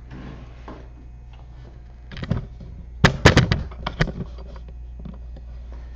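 Handling knocks and clicks: a few short knocks a little over two seconds in, then a quicker cluster of sharp clicks from about three to four seconds in, over a low steady hum.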